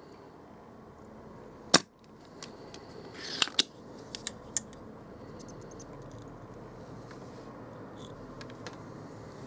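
Spring-loaded desoldering pump (solder sucker) firing: one sharp snap of the released plunger a little under two seconds in, sucking molten solder off a bridged IC pin. A second and a half later come a short scrape and a few lighter clicks.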